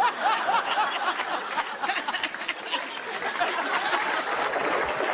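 A man laughing loudly in quick bursts at first, over a studio audience laughing, which turns into steady clapping and laughter from the crowd.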